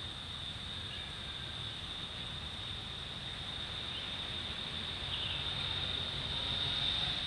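Insects droning outdoors: one steady high-pitched buzz that swells a little near the end, over a low background rumble.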